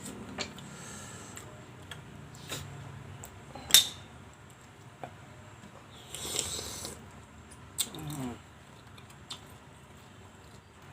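Eating at a plate of green mussels and shrimp: scattered sharp clicks of shells and cutlery against the plate, the loudest just before four seconds in, a short sucking slurp around six seconds, and a brief pitched sound near eight seconds.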